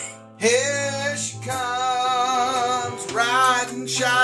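Country song: a singing voice holds long notes with vibrato, without clear words, over steady sustained backing instruments.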